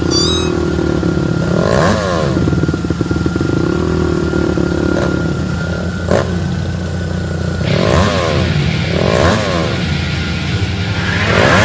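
A small motor-vehicle engine running steadily, revved up several times: about two seconds in, then twice more near the end.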